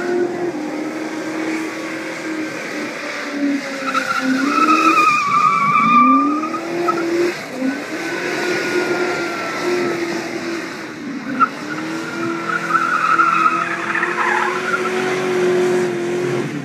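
Ford XA Falcon coupe doing a burnout: the engine is held at high revs, sagging and climbing back up again and again, while the rear tyres spin and squeal on the bitumen. The tyre squeal rises loudest twice, about a third of the way in and again near the end.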